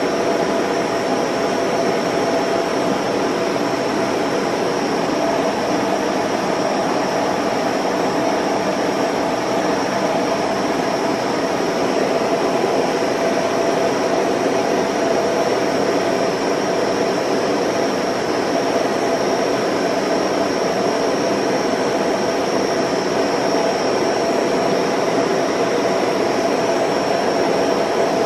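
Film projector running: a steady mechanical whir with a constant whine, unchanging throughout.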